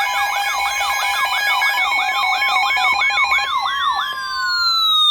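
Electronic siren-like alert tone from an emergency alert broadcast: steady tones under a fast yelping warble, about three to four sweeps a second. About three and a half seconds in, the warble stops and a long falling glide takes over.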